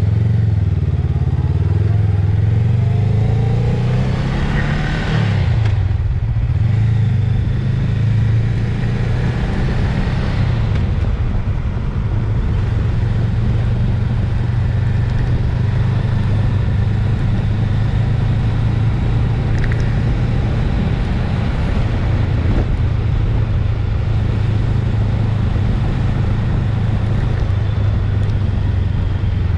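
Motorcycle engine running while riding, heard from a camera mounted on the bike. The engine note rises and falls over the first five seconds, then holds steady.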